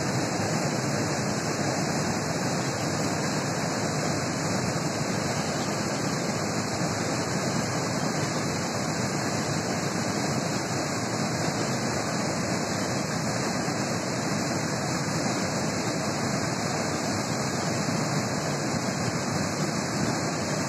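Steady rushing of a fast-flowing river current, an even noise with no breaks.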